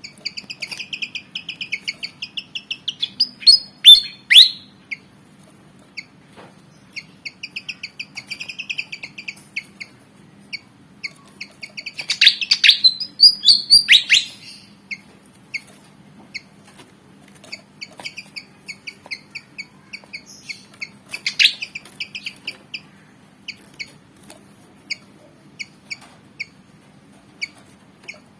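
Malaysian pied fantail calling: long runs of short, rapid, high squeaky notes, broken by louder sweeping calls about four seconds in, again around twelve to fourteen seconds, and once near twenty-one seconds.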